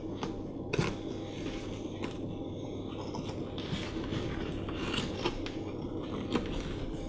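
Twine being wound around a hand and pulled taut against a small wooden board: dry rustling and scraping, with a few sharp clicks.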